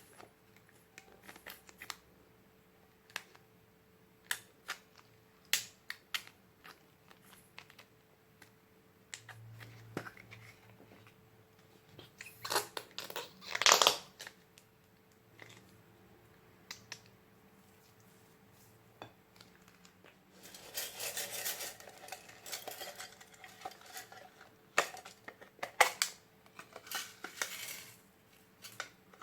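Slime being mixed with glitter, beads and makeup: scattered small clicks and taps, a louder burst of noise about 13 seconds in, and longer stretches of crackly handling noise around 21 and 27 seconds.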